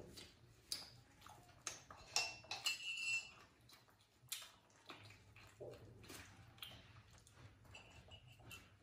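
Faint scattered clicks, taps and soft handling noises of bread being torn and eaten, with light clinks of a mug and steel bowl, and two brief high-pitched tones, one near the middle and one near the end.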